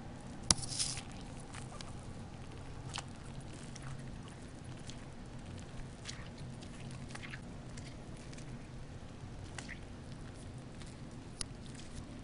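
A hedgehog moving in shallow bubble-bath water, with small splashes and patters at irregular intervals; the loudest splash comes about half a second in. A faint steady low hum runs underneath.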